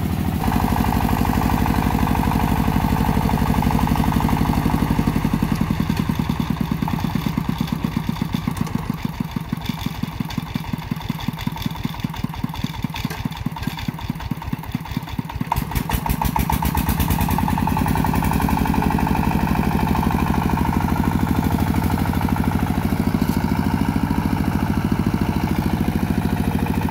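Single-cylinder diesel engine of a two-wheel walking tractor (công nông) running as it hauls a loaded rice trailer through mud. Its firing slows to distinct, separate chugs through the middle, then picks up again to a faster, steadier run about two-thirds of the way through.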